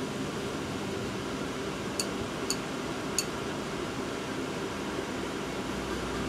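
Steady mechanical room hum, with three short, sharp, high clicks in quick succession about two seconds in.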